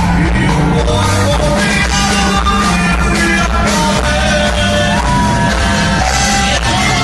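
Live band playing amplified music: electric guitar, bass and drums with a steady beat, and a voice singing over it.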